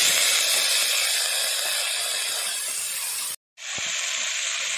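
Diced raw potatoes sizzling in hot oil in an iron kadai, a loud steady hiss as the wet potatoes hit the oil, slowly dying down. It breaks off for a moment about three and a half seconds in, then carries on more quietly.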